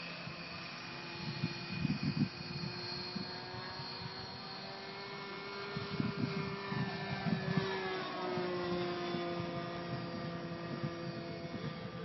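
OS .46 two-stroke glow engine of a Seagull P-51 Mustang RC model plane in flight, a steady high-pitched buzz whose pitch drops about eight seconds in as the plane passes.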